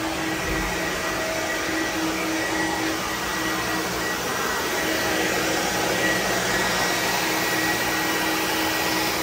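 An electric blower-type motor, such as a vacuum or air dryer, running steadily: a constant rush of air with a steady motor whine.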